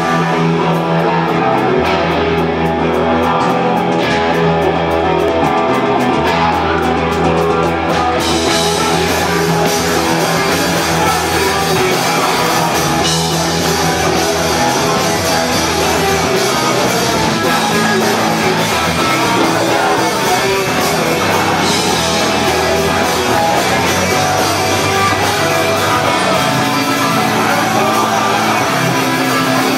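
Live rock band playing loud, with electric guitars and drums; the full band with cymbals comes in about eight seconds in. A singer sings into a microphone over it.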